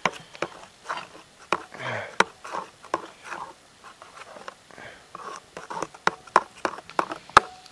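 A utensil clicking and scraping against a bowl as powdered egg and water are stirred together by hand. The clicks are sharp and irregular, and they come faster and louder toward the end.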